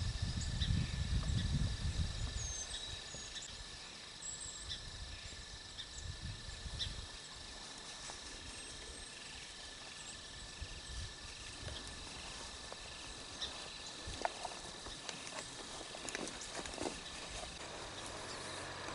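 Quiet outdoor ambience: a low wind-like rumble on the microphone for the first few seconds, then a faint steady background with a few high chirps and scattered small clicks and rustles.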